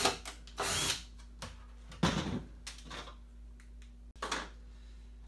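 Cordless Ryobi drill run in a few short bursts, each under half a second, against a plastic bucket's freshly drilled holes to clean off burrs of plastic. There is a sharper, louder knock about two seconds in.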